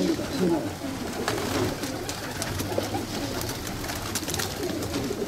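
Domestic pigeons cooing: many short, low coos overlapping continuously, with a few sharp clicks.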